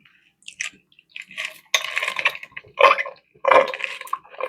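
Someone drinking orange Kool-Aid in several loud gulps, one every half second to a second, starting about two seconds in, after a few faint mouth clicks.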